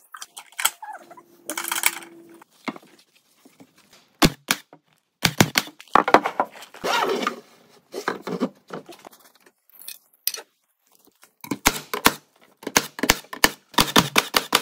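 Metal hand tools clicking and clattering in short groups with abrupt gaps between them: a wrench working the nuts on the sill plate's anchor bolts, with tools being handled.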